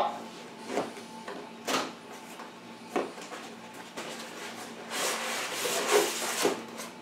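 Cardboard retail box being opened by hand: a few light knocks and scrapes, then a longer rubbing slide about five seconds in as the white foam inner tray is pulled out of its cardboard sleeve.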